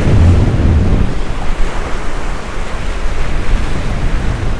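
Wind buffeting the microphone, heaviest in the first second, over waves breaking and washing against the boulders of a rock jetty.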